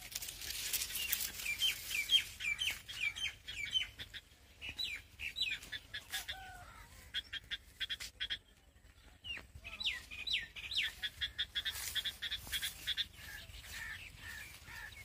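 Birds chirping: runs of short, high, hooked chirps at about four a second, in one run about a second in and another after the middle.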